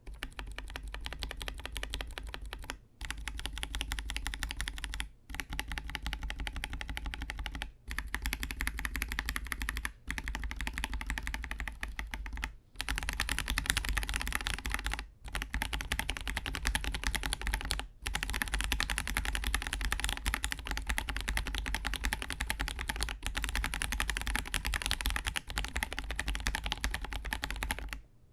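Fast, continuous typing on a KBD67 Lite R3 mechanical keyboard fitted with Akko Sponge tactile switches: dense keystroke clacks. In the first half the typing is broken by brief pauses every two to three seconds. Partway through it turns brighter and fuller.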